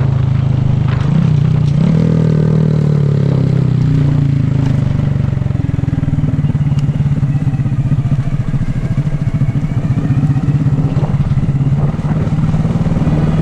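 Motorcycle engine running at low speed. Its pitch drops slightly about two seconds in as the bike slows, then it runs steadily at low revs.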